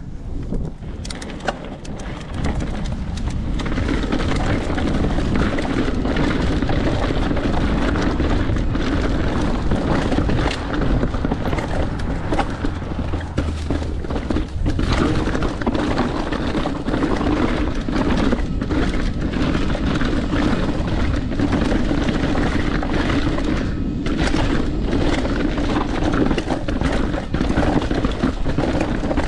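Santa Cruz Nomad mountain bike descending a rocky trail, heard from a camera mounted on the rider: tyres rolling over rocks and dry leaves, with constant rattling and knocks from the bike, and wind on the microphone. Quieter for the first couple of seconds, then louder.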